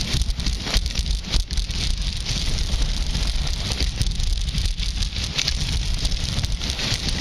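Skis sliding and scraping over packed piste snow: a continuous hiss broken by gritty chatter. Under it is a low wind rumble on the microphone from the speed of the run.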